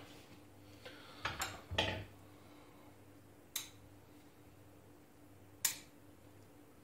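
Metal bonsai tools clatter against each other as they are picked up, then the bonsai pruning shears give two sharp, single snips, about two seconds apart, as they cut Chinese elm twigs close to the buds.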